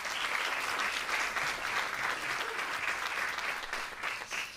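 Audience applauding: many hands clapping in a steady patter that fades out near the end.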